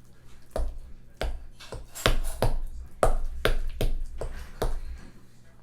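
Utensil knocking against a mixing bowl while mashing bananas: about ten sharp knocks, roughly two a second.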